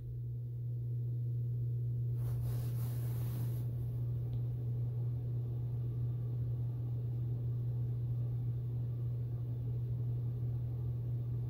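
A steady low hum that starts abruptly and holds unchanged, with a short hiss about two seconds in lasting a second and a half.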